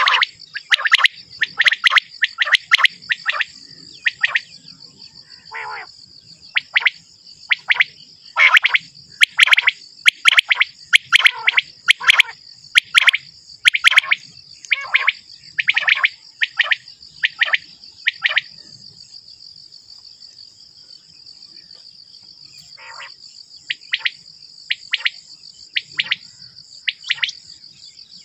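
Common quail (batair) calling: short, sharp, falling calls in quick clusters, repeated over and over, with a pause of about four seconds a little past the middle. A steady high-pitched insect buzz runs underneath.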